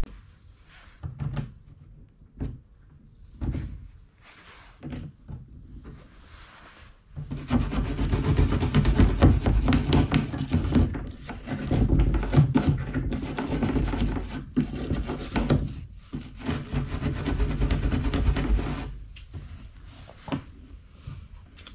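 A few scattered knocks and handling noises, then from about seven seconds in a rough, rasping grinding on the polypropylene fuel tank's surface. It runs for about twelve seconds with a couple of brief breaks and stops near the end.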